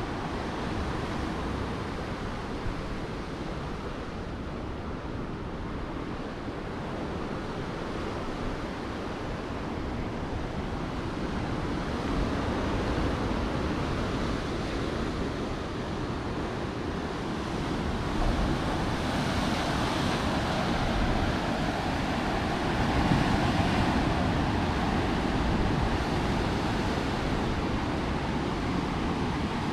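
Steady rushing of sea surf mixed with wind on the microphone, growing louder in the second half.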